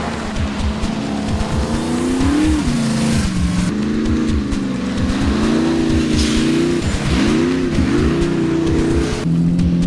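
Off-road 4WD race truck engine revving hard, its pitch rising and falling with the throttle as it slides through a muddy corner, with sharp drops in revs about a third of the way in and again about two-thirds in.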